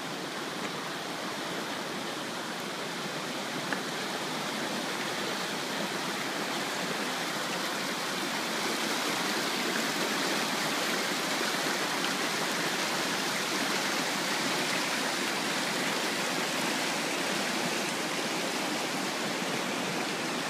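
River water rushing over rocks in shallow rapids, a steady white-water hiss that grows a little louder several seconds in.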